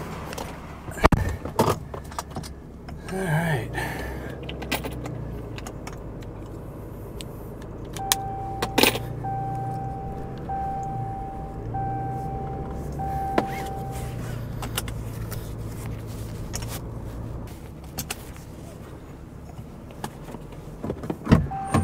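A truck engine idling, with scattered clicks and knocks. In the middle an electronic beep sounds five times in a row, each beep about a second long.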